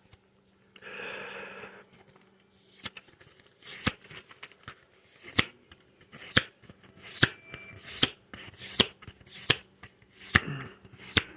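Trading cards being flipped through one at a time, each card giving a short, sharp flick, about a dozen at an uneven pace of roughly one a second. A brief soft rustle comes about a second in, before the flicks start.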